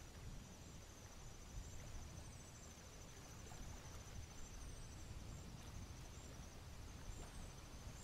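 Faint wetland ambience: a steady, high, fast-pulsing insect trill, with short, thin, falling chirps every second or so over a low rumble.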